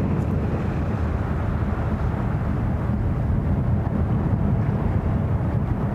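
Steady low drone of a large propeller aircraft's engines, an even rumble with no change in pitch or level.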